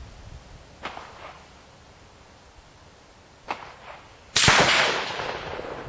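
A single shot from a Remington 700 VS rifle in .308 Winchester: a sharp crack about four seconds in, with an echoing tail lasting more than a second. Two much fainter clicks come before it, at about one second and three and a half seconds.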